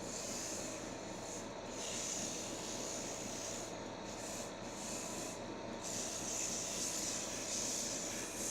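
Sandpaper rubbing against a wooden workpiece spinning on a wood lathe: a steady hiss that swells and dips several times as the paper is pressed on and eased off, over the lathe's running hum.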